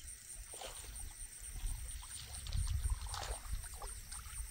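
Water splashing a few times, strongest about half a second in and again just after three seconds, over a low rumble and a steady high drone of crickets.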